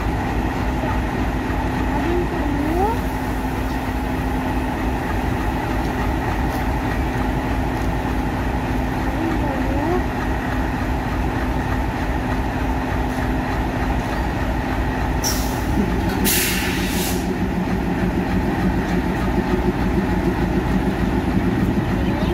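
Diesel locomotive engine idling at close range: a steady low rumble with a held hum. About fifteen seconds in come two short hisses, and then the engine's hum drops lower and takes on a pulsing beat.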